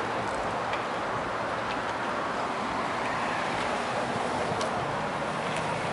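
Steady outdoor background noise of traffic and wind on the microphone, with a few faint ticks.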